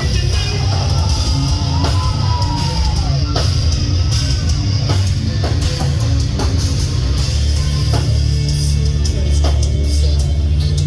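Live hard-rock band playing loud, with heavily distorted guitars, deep bass and a pounding drum kit. A guitar bend rises and falls about two to three seconds in.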